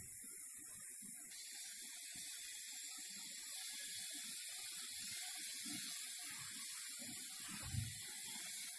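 Aluminium pressure cooker on a gas stove hissing steadily as steam escapes at its weight valve.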